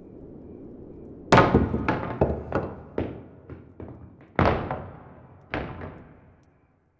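Wooden crutch dropped onto a wooden floor: a loud clatter about a second in, bouncing in a run of quickening, fading knocks, then two more sharp clatters near the end. A low rumble comes before the first clatter.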